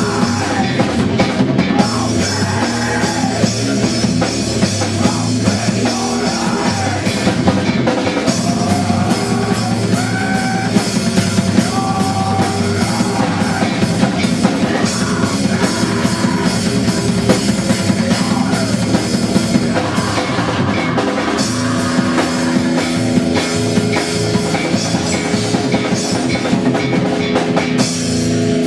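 Rock music played on a full drum kit with band instruments, dense and steady. About two-thirds of the way in, long held bass notes take over.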